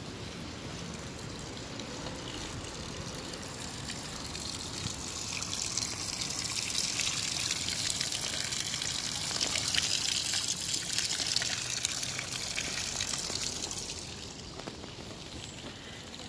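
Running, splashing water that grows louder over several seconds and then fades.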